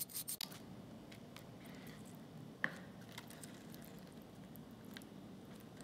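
Wire brush scrubbing rust off a steel cleaver blade in quick strokes, stopping about half a second in. After that only faint scattered ticks, with one sharper click near the middle.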